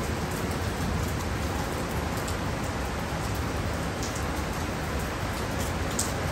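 Heavy driving rain pouring down in a steady, even rush, with a few sharper drop ticks about four seconds in and near the end.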